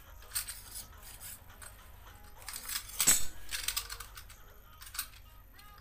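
Short clicks, clacks and scrapes of hand tools being handled on a wooden workbench as a pair of red-handled pliers is picked up, the loudest clatter about three seconds in.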